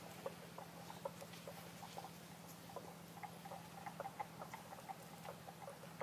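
A pigeon pecking at grain on sandy ground: faint, irregular quick taps and clicks, several a second, over a steady low hum.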